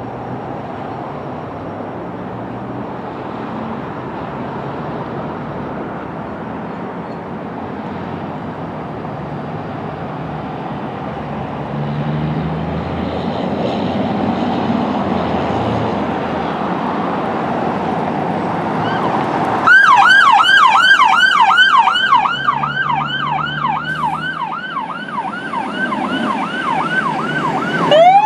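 Emergency vehicle engines running with a steady rumble that slowly grows louder. About two-thirds of the way through, an electronic siren starts in a fast yelp, about two to three sweeps a second, and becomes the loudest sound until just before the end.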